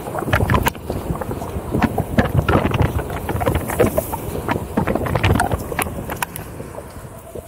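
Onewheel's fat tyre rolling fast over a sandy dirt trail at about 15 mph, with wind on the microphone and many sharp knocks and crackles from the rough ground.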